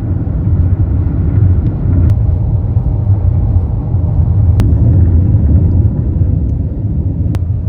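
Car driving at highway speed, heard from inside the cabin: a steady low road and engine rumble, with a few faint clicks.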